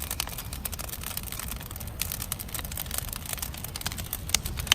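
Large wood bonfire burning hard: dense crackling and popping over a steady low rumble, with one sharper pop near the end.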